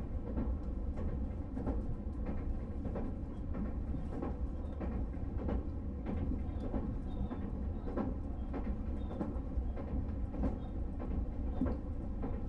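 Cabin running noise of a Tobu 500 series Revaty electric train under way: a steady low rumble with light, irregular clicking from the wheels on the track.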